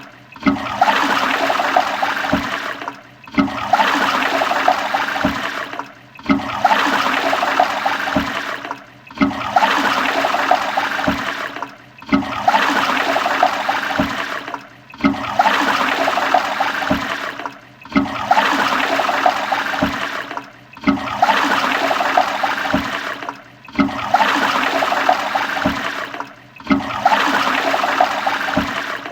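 Toilet flushing: a few seconds of rushing, gurgling water that breaks off briefly and starts again about every three seconds, the same flush repeating over and over.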